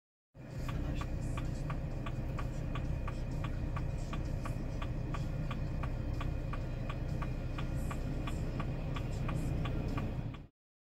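Car indicator relay clicking steadily inside the cabin, about three clicks a second, over the low, steady sound of the car's idling engine.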